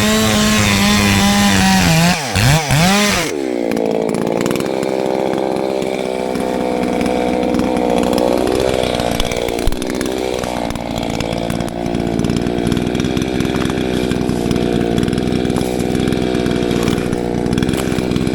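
Chainsaw cutting through a log. It runs high and steady, its pitch drops and wavers sharply about two to three seconds in as the chain bites into the wood, then it holds a lower, steady whine under load through the cut.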